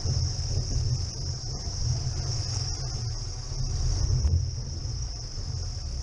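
Chevrolet Niva driving slowly through snowy, icy ruts: a steady low engine and drivetrain rumble that swells a little about four seconds in, with a constant high hiss over it.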